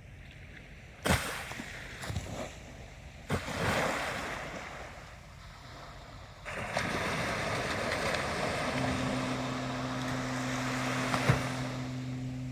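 Ocean waves breaking on a shore: two sharp crashes about two seconds apart, each followed by a wash of surf, then a longer, louder surge of surf from about halfway through. A steady low hum joins near the end.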